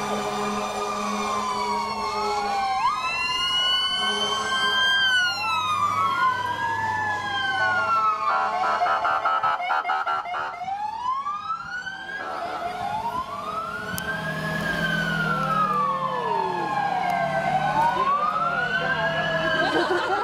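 Sirens of several emergency vehicles (fire truck, police car and ambulance) sound together as the vehicles pass in procession. Overlapping wails rise and fall slowly, and a fast yelping warble cuts in around the middle.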